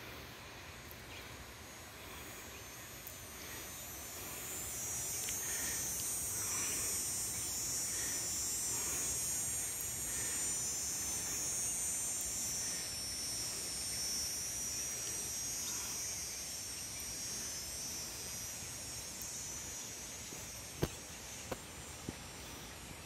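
Cicada buzzing: a steady, high, shrill drone that swells up a few seconds in, holds, and slowly fades away near the end.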